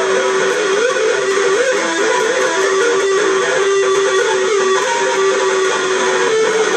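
Electric ukulele played through an amplifier in an instrumental break: a picked melody line moving over a held note, with strumming.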